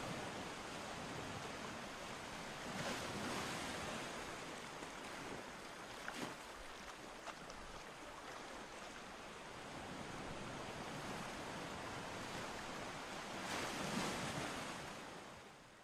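Sea waves washing in, a steady hiss that swells a few seconds in and again near the end, then fades out.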